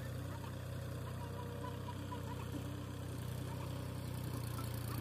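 A New Holland tractor's diesel engine running steadily under load as it reverses a trailer loaded high with sugarcane.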